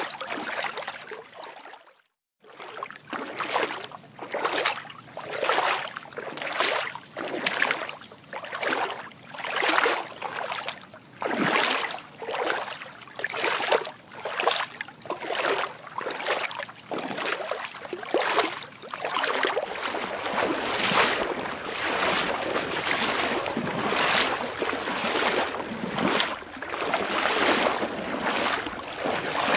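Water sloshing and lapping in rhythmic swells, about one a second. It drops out briefly about two seconds in, and in the last third it runs more continuously.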